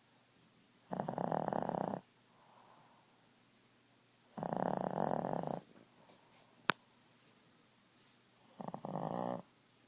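Boston terrier snoring in its sleep: three snores about a second long, spaced about three and a half seconds apart, with faint breathing between them. A single sharp click sounds between the second and third snore.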